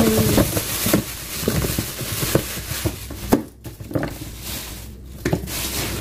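A thin plastic bag rustling and crinkling as onions are tipped out of it into a plastic bin, with small knocks of onions landing. The rustling is densest in the first second, then thins to scattered crinkles, with one sharp knock a little past three seconds in.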